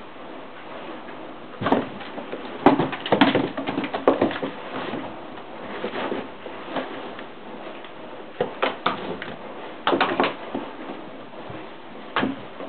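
Kittens scrambling in and on cardboard boxes: irregular knocks, thumps and scuffs against the cardboard, in bursts about two seconds in and again around the ninth to tenth second, with one more knock near the end.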